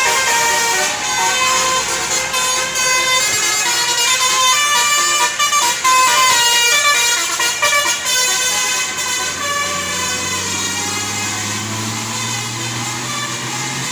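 Tour bus basuri (telolet) musical horn playing a quick tune of short notes that change in steps. The horn stops about nine seconds in, leaving the bus's engine running low.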